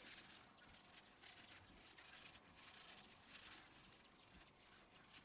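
Near silence, with faint soft rustling of a cloth rag wiping a dirt bike's steering stem and its lower bearing.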